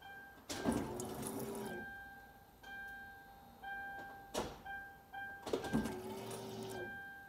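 Electric fuel pump of a Ford Panther-platform car running in two short bursts, each about a second long, as the ignition is switched on to prime the fuel system and pressurise a freshly fitted fuel filter. A sharp click comes between the bursts, and soft background music plays under it.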